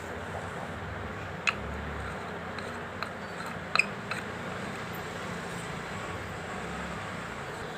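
A few sharp clicks and knocks of plastic water-purifier parts being handled and fitted together, the loudest about a second and a half in and a quick double click near four seconds, over a steady low background hum.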